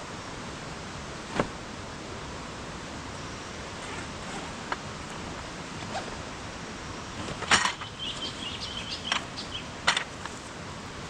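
Steady rushing of a stream, with scattered sharp knocks and clicks; the loudest clatter comes about seven and a half seconds in, followed by brief high squeaks.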